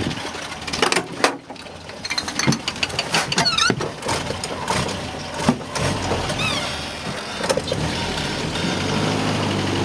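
A motor vehicle's engine running, growing louder through the second half, over a steady rushing noise with scattered knocks and clicks.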